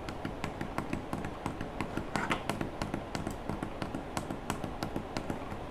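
Rapid, irregular light taps and clicks, several a second, like fingers tapping on a desk or keys.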